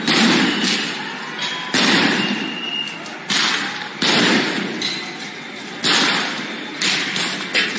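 Repeated loud bangs, roughly one a second, each starting sharply and trailing off in echo, with crowd noise between them: riot police firing on protesters in a street clash.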